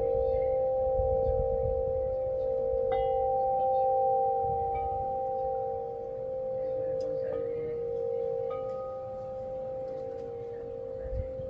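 Metal tubular wind chime ringing, its long tones hanging on and overlapping, with fresh strikes about three seconds in and twice more a little past seven and eight seconds.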